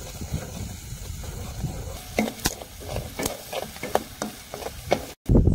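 A spoon stirring and knocking against a pan of sizzling food, the knocks coming thick and fast from about two seconds in. The sound cuts off abruptly just before the end, and a louder noise follows.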